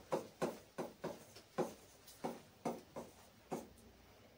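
Handwriting: about ten short, sharp strokes and taps at irregular intervals, as someone writes.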